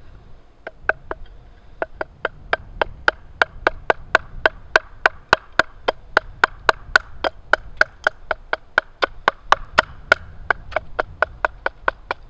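Wooden baton striking the spine of a knife set into a wooden billet, chipping away material to rough out a mallet's handle: a steady run of sharp knocks, about three a second, each with a brief ring.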